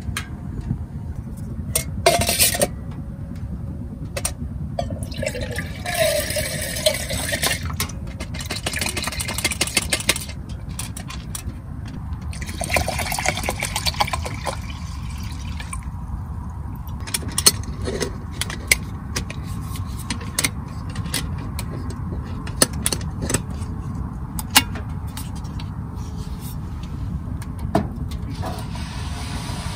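Water poured from a plastic bottle into a titanium camping pot, splashing in a few stretches around the middle, over a steady low rumble. Scattered clicks and knocks come from handling the pot and cookware.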